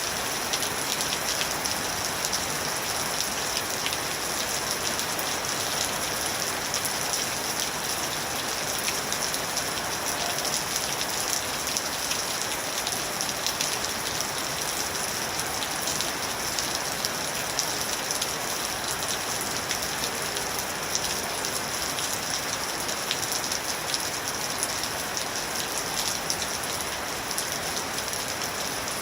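Steady rain falling and pattering on a surface, a dense even hiss with many fine, crisp drop ticks and no thunder.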